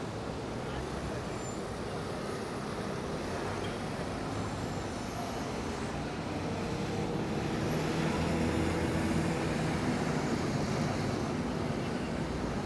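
City street traffic noise: steady road noise, with a passing vehicle's engine hum growing louder in the middle and then easing off.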